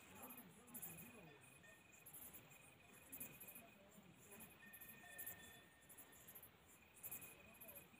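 Faint crickets chirping in a night chorus, high pulses repeating about every half second to a second.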